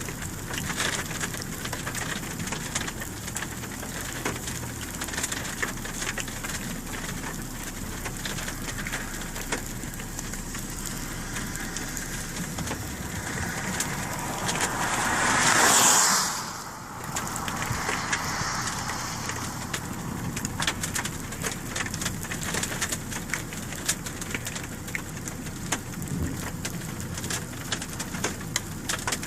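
Rain falling on a vehicle: a steady hiss with many small ticks. About halfway through, a rushing whoosh swells over a couple of seconds, peaks, and cuts off sharply.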